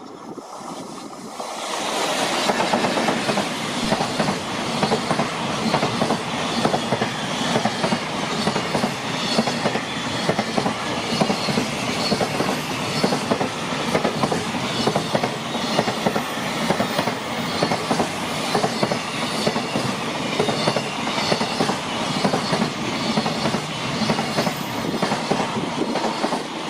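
Freight train passing close by: an EF210 electric locomotive followed by a long line of container flatcars, the wheels clattering steadily over the rail joints. The sound swells to full loudness about two seconds in.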